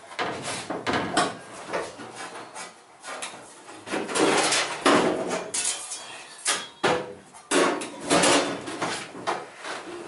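Irregular knocks, clunks and rattles of someone climbing into and moving about in the cab of an old pickup truck, its door swung open.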